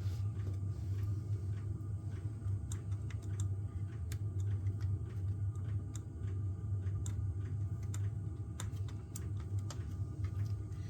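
Light, irregular clicks and ticks of small plastic parts and wires being handled inside an open laptop case, over a steady low electrical hum.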